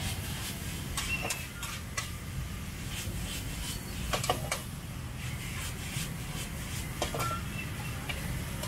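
Street market ambience: a steady low rumble of traffic with scattered clicks, knocks and clinks, the loudest a cluster about four seconds in.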